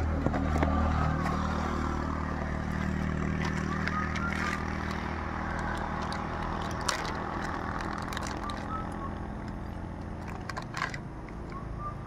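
Cardboard parcel and plastic packaging being opened and crinkled by hand, with scattered crackles and clicks. Under it a motor engine runs with a steady low hum that is loudest for the first couple of seconds, then eases off.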